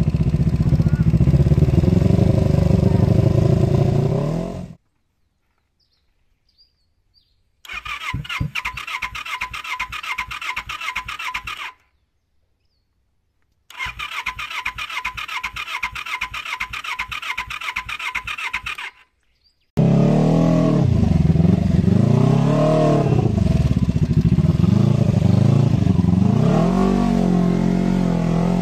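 Kawasaki Eliminator motorcycle engine running under way, revs rising and falling. The sound cuts out, then the electric starter cranks the engine in two long stretches of even, rapid churning, each ending abruptly. From about twenty seconds in, the engine runs again with revs going up and down.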